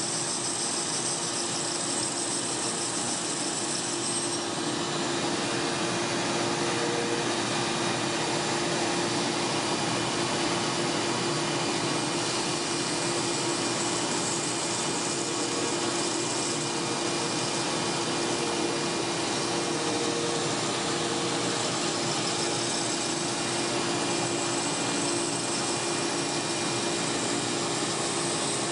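14-inch bandsaw with an 1/8-inch blade running steadily, its motor hum and blade noise continuous while it cuts curves through a taped stack of Kydex sheets.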